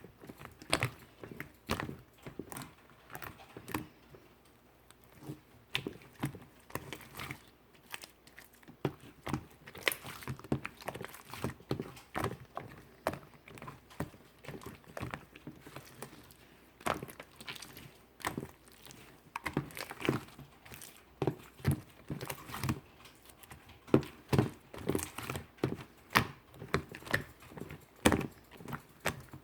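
Slime being squished and kneaded by hand, giving irregular wet clicks and pops several times a second.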